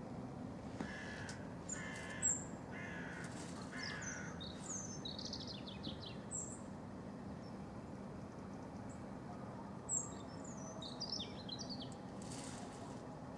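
A crow caws four times in the first few seconds, while small songbirds give high, thin down-slurred chirps and bursts of twittering throughout. A steady low hum runs underneath.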